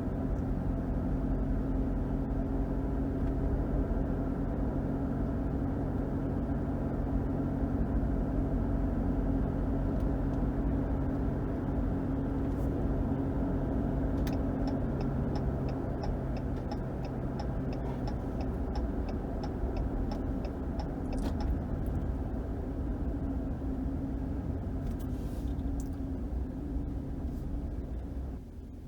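Cabin sound of a 2021 Ram 1500's 5.7 HEMI V8 and tyres on the road while driving, a steady rumble whose engine tone shifts about halfway through. In the middle, a turn-signal indicator clicks about twice a second for several seconds.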